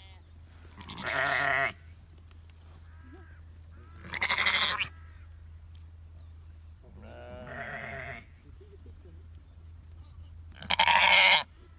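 Farm livestock bleating: four separate wavering calls about three seconds apart, the third quieter and the last the loudest.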